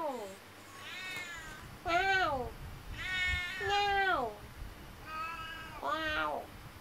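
Domestic cat meowing repeatedly, about six drawn-out meows that each fall in pitch, some higher and some lower.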